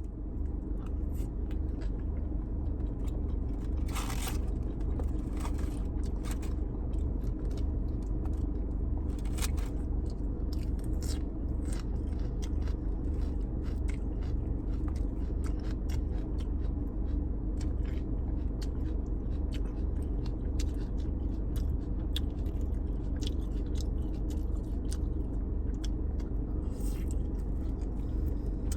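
Close-up eating sounds: chewing and biting teriyaki chicken, with scattered clicks and scrapes of utensils on the food container. Under it runs a steady low rumble, the loudest thing throughout.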